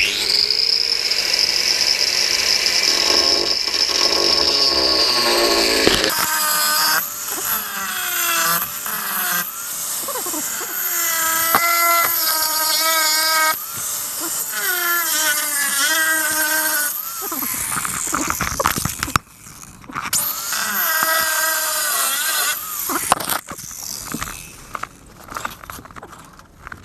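Electric power tool cutting into a Land Rover Discovery 2's steel rear chassis rail. It starts with a high whine, then its pitch sags and recovers again and again as it bites into the metal. It stops briefly about 18 seconds in, runs again, and stops for good about 23 seconds in.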